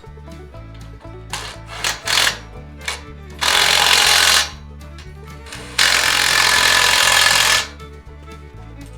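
A power tool run in bursts over background music: a few short blips, then two longer runs of about a second and nearly two seconds.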